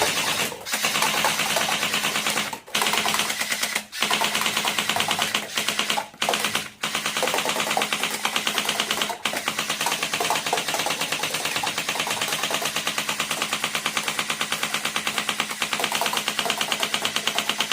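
Toy Glock 17 pistol firing in long automatic bursts: a rapid, steady mechanical clatter of many shots a second, broken by a few brief pauses.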